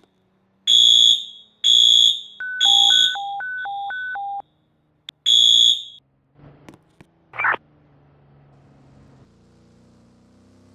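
Pulled fire alarm horn sounding in the temporal-three evacuation pattern: three short, loud, high-pitched blasts, a pause, then a fourth. Under the third blast a two-tone high-low warble runs for about two seconds. The horn stops about six seconds in, followed by a single short knock.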